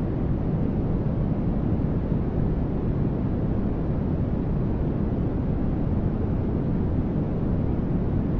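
Continuous white-noise track: a soft, steady static, deeper and fuller at the low end than the high, that never changes.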